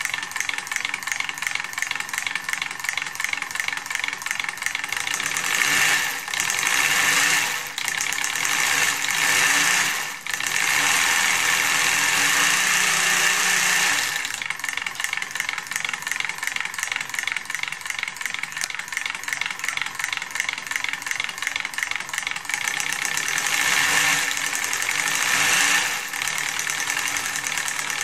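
Eight JF-0530B 12 V solenoids of a 3D-printed model V8 firing in rapid sequence to turn a printed crankshaft and flywheel: a fast, dense clatter. It grows louder and eases back several times as the throttle pedal speeds it up and lets it slow.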